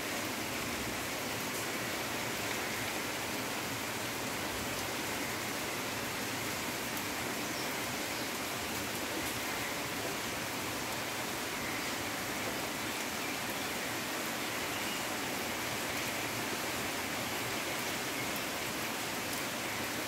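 Heavy rain falling steadily on tree foliage and the ground: an even, unbroken hiss.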